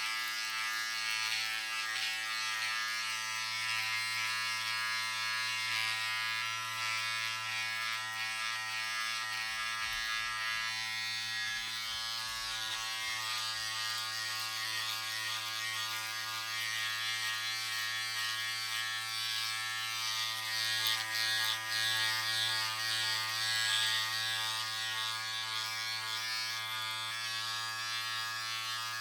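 Electric razor running with a steady, even-pitched buzz. Its higher rasp rises and falls, loudest a little past twenty seconds in.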